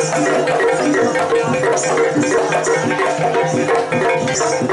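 Live Banyuwangi barong dance accompaniment: an ensemble of drums and pitched percussion plays short repeated notes, with a steady rhythmic metallic rattle of cymbals or shakers on top.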